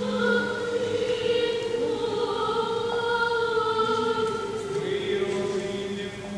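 Church choir singing a slow liturgical chant in unaccompanied harmony, with long held notes that shift every second or two.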